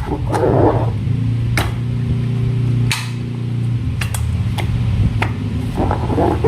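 Hands working slime and rubber balloons: sharp clicks and squishing, with a steady low hum from about a second and a half in until about five seconds.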